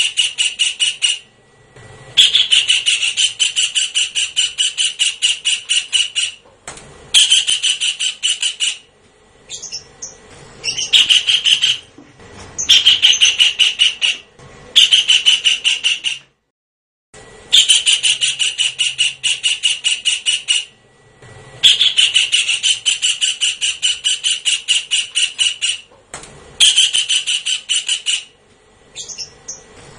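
Kingfisher calling in bouts of rapid, harsh, repeated notes, about five a second. Each bout lasts one to four seconds, with short breaks between, and the call is played as a bird-trapping lure call.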